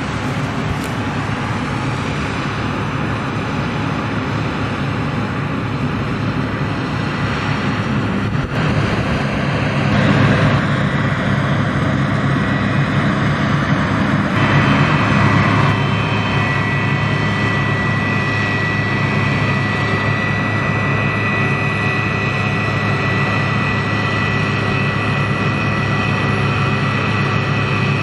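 New Holland CX740 combine harvester running at work harvesting barley: a loud, steady engine and threshing drone. From about halfway through, as the machine passes close, a steady high whine joins the drone.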